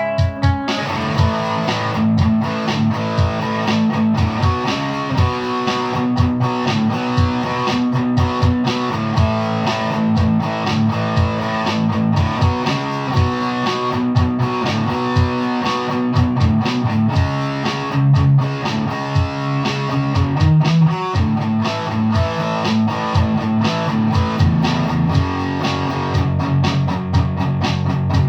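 Ibanez J Custom 8570Z electric guitar being played: a continuous, busy run of picked notes over sustained lower notes.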